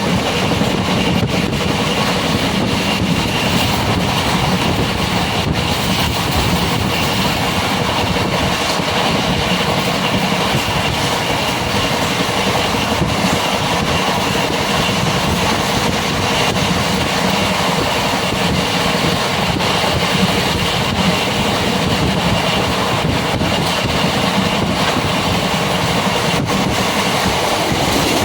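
Steady rumbling noise of a moving vehicle, even in level throughout.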